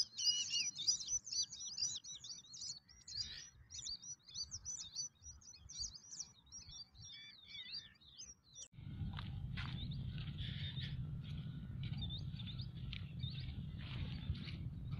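Many small birds chirping in quick, overlapping calls. About nine seconds in this cuts off suddenly and gives way to a steady low rumble with a few faint chirps over it.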